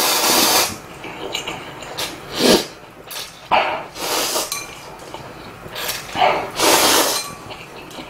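A person slurping instant ramen noodles with chopsticks: about five slurps, a few long and some short, a second or two apart.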